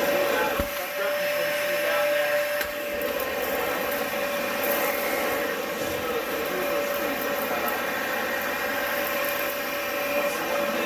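Upright vacuum cleaner running steadily, its motor giving a constant whine over the rush of airflow, with a brief knock about half a second in.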